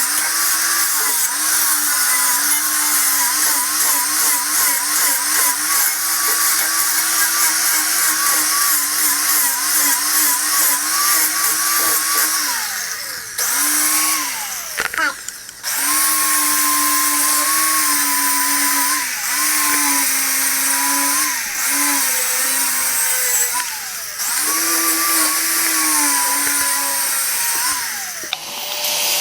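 Handheld power tool motor whining under load as it opens out the tight bore of a brake drum so the axle fits. Its pitch keeps wavering as the tool bogs and recovers. It stops briefly twice, about 13 and 15 seconds in, and cuts off near the end.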